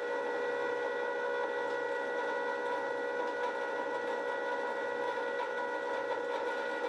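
Ss Brewtech grain mill's electric motor running at steady speed, a steady whine of several pitched tones, having just spun up.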